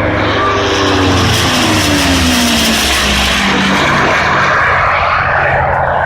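P-51D Mustang's Packard Merlin V-12 engine and propeller making a loud fly-by, the engine note falling steadily in pitch over the first few seconds as it passes, then a broad steady rush of engine and air.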